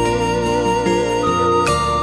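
Background music: a soft instrumental with a wavering flute-like melody over held chords.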